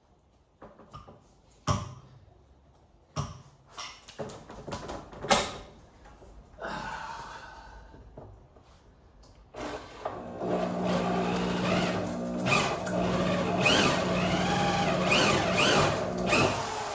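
Knocks and clatter of heavy wire being handled, then about ten seconds in a motor-driven Stripmeister wire stripper starts and runs steadily, with short repeated squeals as it cuts the insulation off 3-gauge copper wire.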